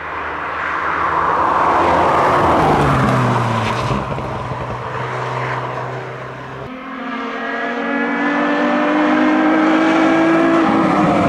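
Rally cars at speed. First an Alpine A110's turbocharged four-cylinder engine comes past, its pitch falling as it slows for a bend. After a cut about two-thirds of the way in, a Nissan 350Z's V6 accelerates hard toward the microphone, pitch climbing steadily until the driver lifts near the end.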